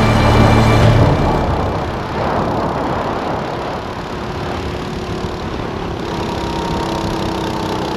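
Go-kart engine running hard at speed on track, heard from the kart. Backing music fades out about a second in.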